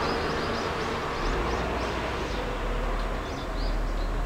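Small birds chirping in quick repeated calls over a steady background rumble. A low steady hum comes in about a second in.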